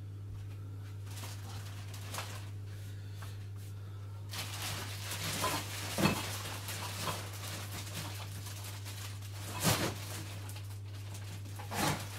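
Dishes clinking and knocking during hand washing-up, with a few sharper knocks near the middle and end. A steady hiss comes in about four seconds in, over a constant low hum.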